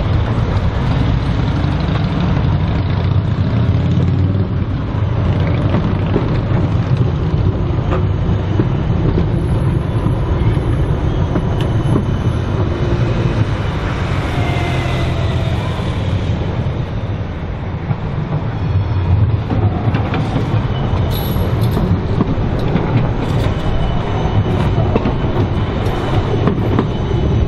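Siemens Combino low-floor trams passing along a city street, a steady rumble over the traffic noise. The passing tram is loudest about halfway through, with a faint whine.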